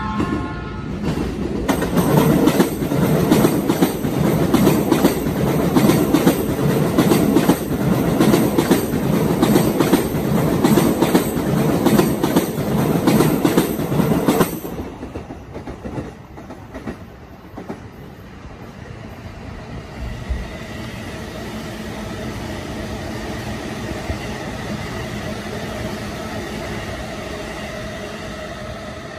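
Electric commuter train passing close, its wheels clattering densely over the rails for about thirteen seconds before the sound cuts off suddenly. After that, a quieter, steady train running sound with a faint whine.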